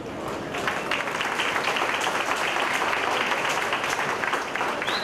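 Crowd applauding, a dense patter of many hands clapping that swells about half a second in and then holds steady.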